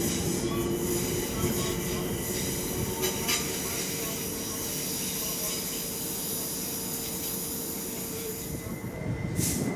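London Overground trains at a platform: high-pitched, steady wheel squeal from a train drawing in, over a steady hum from a standing Class 378 electric unit. The hum fades near the end, and a short burst of hiss comes just before it ends.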